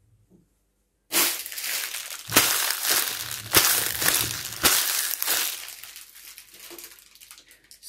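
Heavy footsteps crunching in snow, slow and about one step a second, fading near the end.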